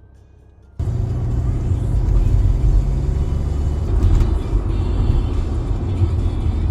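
A loud, steady low rumble starts abruptly about a second in and runs on without a break.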